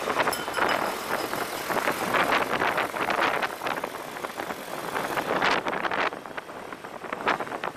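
Road noise from riding a motorbike through traffic: wind rushing unevenly over the microphone, mixed with the hum of engines.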